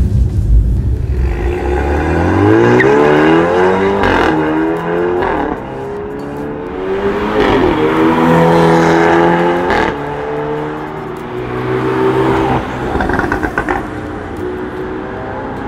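BMW 428i's turbocharged 2.0-litre four-cylinder, breathing through a de-catted downpipe and valved muffler, accelerating hard through several upshifts. The pitch climbs and then drops at each gear change, with sharp cracks around some of the shifts.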